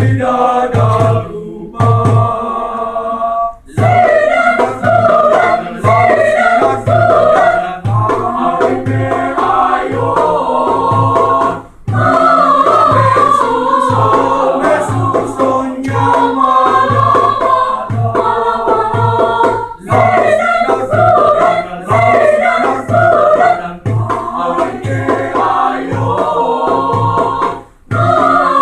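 Choir singing in parts over a steady low beat about twice a second, with a brief break between phrases about every eight seconds.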